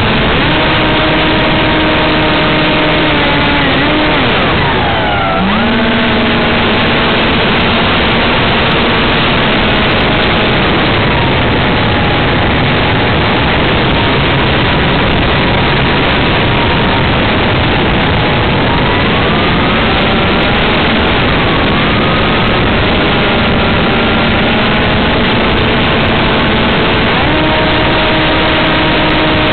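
A model aircraft's propeller motor running continuously, heard from the onboard camera's microphone and mixed with loud wind rush. Its pitch falls steeply about four seconds in as the throttle is pulled back, shifts a few more times, and steps back up near the end.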